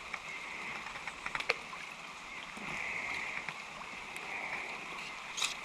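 Creek water running steadily over a riffle, with a few sharp clicks about a second and a half in and again near the end.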